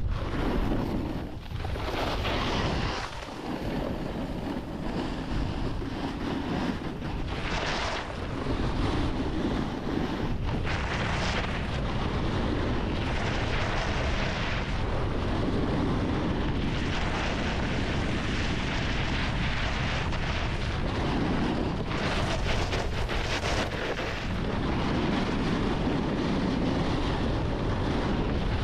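Wind buffeting the microphone at riding speed, over a snowboard sliding and scraping on snow, with louder surges of scraping hiss every few seconds as the board's edges dig into turns.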